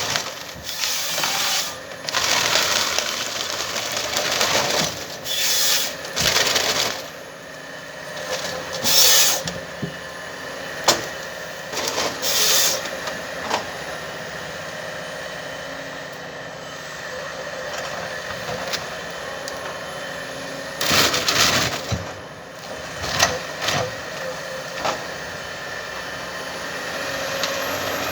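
Komatsu 931XC forest harvester working a tree with its C144 head. The engine runs steadily under repeated loud cracks and snaps of wood and branches breaking, coming in irregular bursts.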